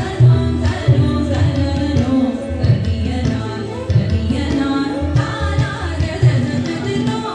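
Music for an Indian classical dance: a voice singing over hand drums, with low drum strokes about every second.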